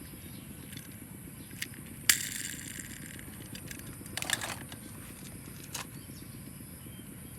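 Hands handling small diecast toy cars: a few sharp clicks and knocks, the loudest about two seconds in followed by a brief rustle, over a steady low background hum.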